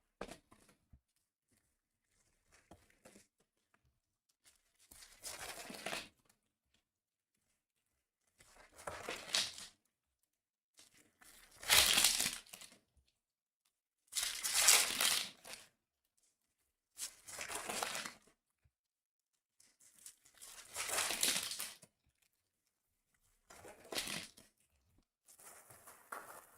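Foil trading card pack wrappers being ripped open one after another, with crinkling: about nine short tearing bursts a couple of seconds apart.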